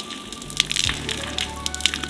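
Soft background music with many short, crackling clicks scattered through it.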